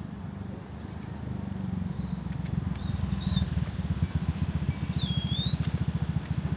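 A nearby vehicle engine running with a rapid, even low throb that grows louder. Thin high chirps or squeaks come through about halfway in.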